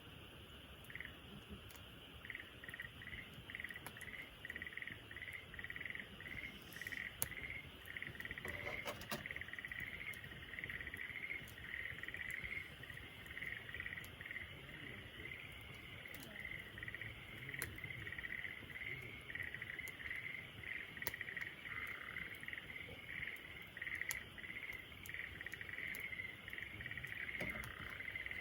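Rhythmic high chirping from a chorus of calling animals, with a campfire crackling underneath in scattered small pops and one sharper pop about seven seconds in.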